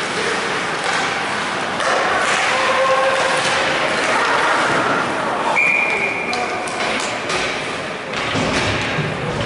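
Ice hockey rink during play: spectators shouting and sticks and puck knocking on the ice and boards. About halfway through comes one short blast of a referee's whistle, stopping play.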